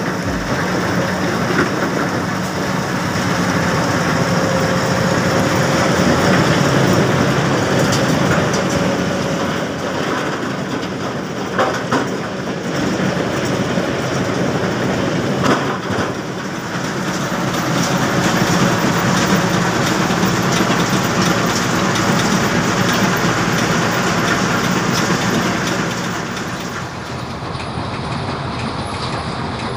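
Heavy machinery at a mobile iron-ore crushing and washing plant running steadily, a dense clattering rumble of engines, conveyors and screening rock. Two sharp knocks stand out, about twelve and sixteen seconds in.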